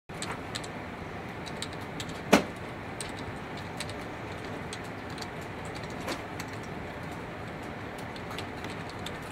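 Typing on a Dell computer keyboard: irregular key clicks, with one much louder knock about two seconds in, over a steady background hiss.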